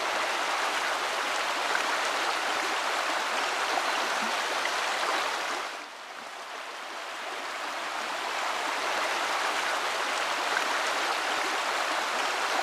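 Shallow river running fast over a stony bed: a steady rush of flowing water, which drops away for a moment about halfway through and then comes back.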